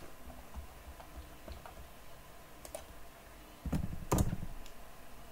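Computer keyboard keystrokes and mouse clicks: a few sparse clicks, then a louder cluster of taps with a dull thump about four seconds in.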